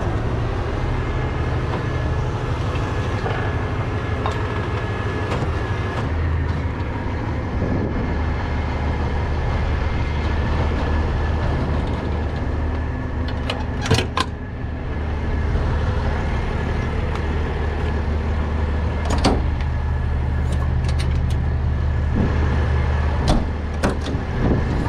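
Tow truck's engine idling steadily, with a few sharp metal clicks from handling the tow gear, the loudest about halfway through.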